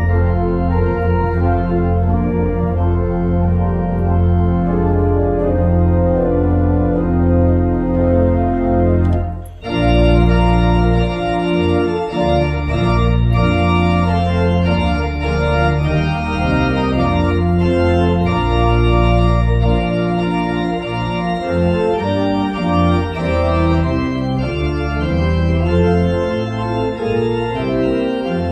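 Church organ playing held chords that change every second or so. About nine and a half seconds in it breaks off briefly, then comes back fuller, with deep bass notes under the chords.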